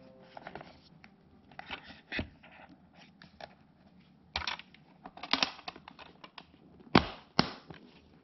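Plastic hard carry case and foam insert being handled: scattered light scrapes, rustles and taps as the speaker is set into its foam cut-out. Near the end the case is shut, with two sharp clicks about half a second apart as the lid and its latches snap closed.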